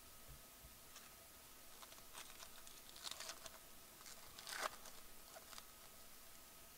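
Faint crinkling of a 2015 Bowman Draft hobby pack's foil wrapper as gloved hands work at it, with a short, sharp tear about four and a half seconds in as the pack is pulled open.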